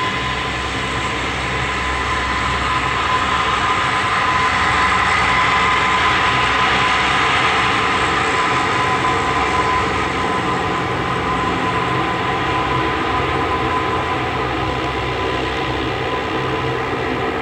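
Four turboprop engines of a Lockheed P-3C Orion running as the aircraft rolls past at close range. There is a steady turbine whine over a low propeller drone, growing slightly louder about five seconds in.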